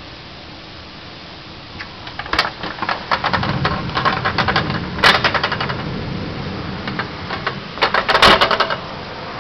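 Thunderstorm: bursts of rapid crackling begin about two seconds in, with a low rumble under them, and are loudest about five seconds in and again near the end.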